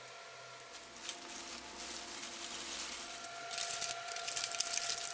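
Miso-marinated Spanish mackerel fillet frying on cooking paper in a pan, sizzling and crackling. The sizzle grows louder through the second half, over a faint steady high whine.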